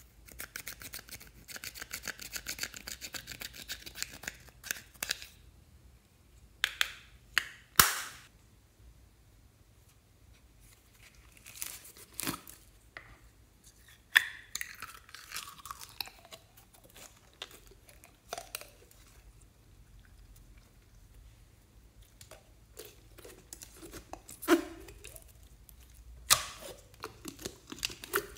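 Pressed eyeshadow being scraped out of its compact with a plastic tool: a dense run of fast scratching for the first few seconds. After that come scattered sharp clicks and crackling of a thin plastic cup being handled.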